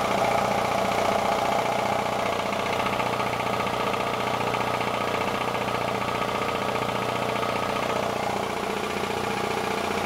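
Sears Craftsman 4.5 HP twin-cylinder 240-volt air compressor running steadily, its electric motor driving the pump to build pressure in the tank.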